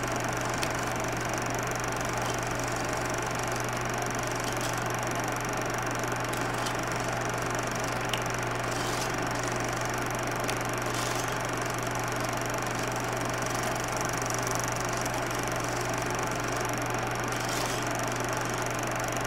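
Running 16mm film: a steady low hum and hiss with scattered clicks and short crackles.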